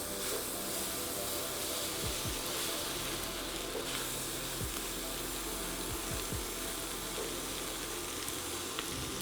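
Rice noodles, chicken and pad thai sauce frying in a hot pan with a steady sizzle, and a few light clicks scattered through it.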